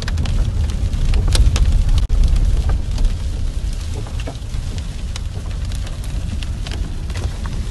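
Rain and hail hitting a moving car's windshield and roof, heard from inside the cabin: irregular sharp taps over the steady low rumble of the car on the wet road.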